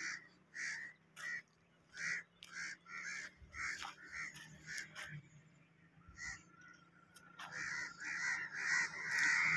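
Crows cawing: a run of short caws about two a second, a brief pause, then denser calling near the end.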